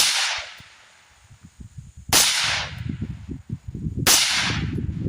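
Three suppressed rifle shots about two seconds apart from a 10.5-inch AR-15 wearing a Diligent Defense Enticer S, a .30-calibre suppressor, firing 55-grain .223 Remington. Each shot is a sharp crack with a short fading echo.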